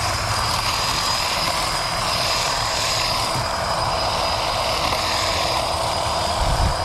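Craftsman V20 cordless handheld hedge trimmer running steadily, its electric motor and blades giving an even, high whine, with a low rumble underneath that swells near the end.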